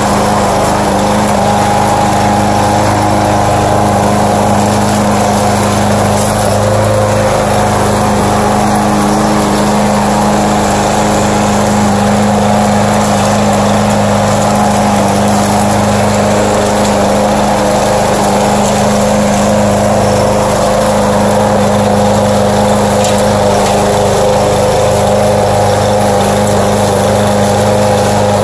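Gasoline walk-behind rotary lawn mower running loud and steady while cutting grass, its single-cylinder engine holding one even speed.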